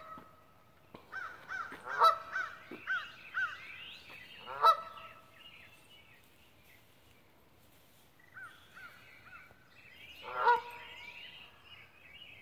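Geese honking: runs of short honks with louder calls about two and nearly five seconds in, a lull, then more honks and a loud call near the end.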